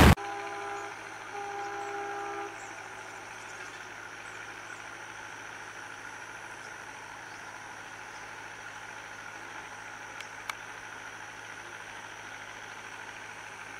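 Distant locomotive horn sounding two steady blasts, the second a little longer, then a faint steady background with a single click about ten seconds in.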